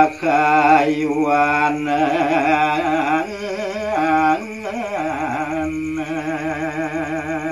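A man singing a Balinese gaguritan verse in tembang macapat style: long, drawn-out melismatic phrases with a wide vibrato over a steady low tone, the line breaking briefly twice.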